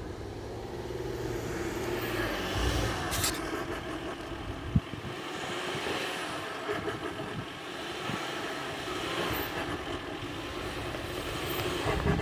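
Volkswagen Touareg TDI diesel SUV driving on an off-road trail, its engine running steadily, with a couple of sharp knocks from the vehicle about three and five seconds in.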